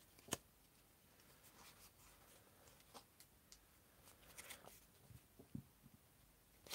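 Faint handling of Age of Sigmar Champions trading cards: a sharp click about a third of a second in, then soft scattered ticks, a brief rustle and a few small taps as a freshly opened pack is fanned and sorted in the hands.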